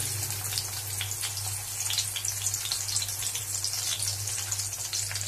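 Sliced onions sizzling in hot oil in a kadai: a steady crackling hiss with many small pops, over a steady low hum.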